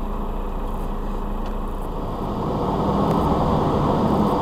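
A truck's engine running, heard from inside the cab as a steady low drone. It grows louder about halfway through.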